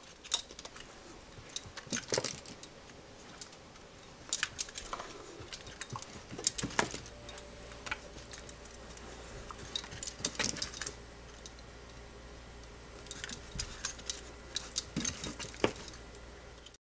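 Metal dog-collar tags jingling in irregular bursts as the dog moves about.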